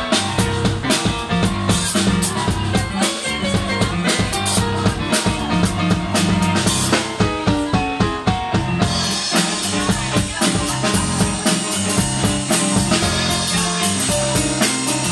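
Live instrumental music from a keyboard and a drum kit, the drums keeping a steady beat. About seven seconds in, the cymbals drop out for a couple of seconds under a stepping run, then the full beat returns.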